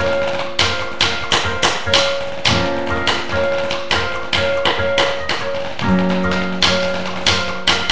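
Drumsticks tapping out a marching snare part in quick, uneven strokes, a few sharp clicks a second, over a piano recording of the show music with held notes.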